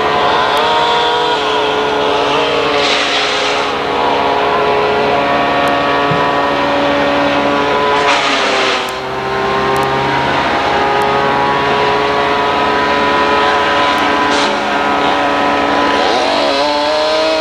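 Chainsaw running hard at high speed, its pitch sagging and then climbing back about eight seconds in and again near the end, with short rasping rushes of noise along the way.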